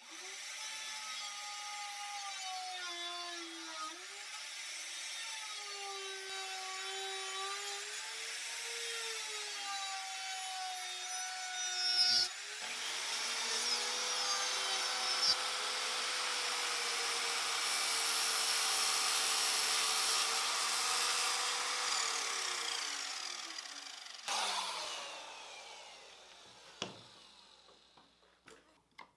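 Electric power tool cutting reclaimed oak, its motor pitch dipping and recovering under load. About twelve seconds in it grows louder. Near the end the motor winds down with a falling pitch.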